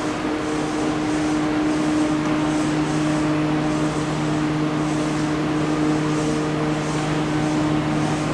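A subway train standing at the platform, its onboard electrical equipment and air conditioning giving a steady hum with a low two-tone drone and an even whir.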